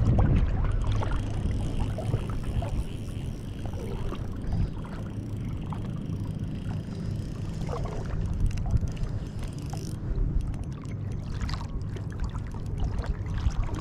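Water lapping and splashing, with wind on the microphone and a steady low hum underneath.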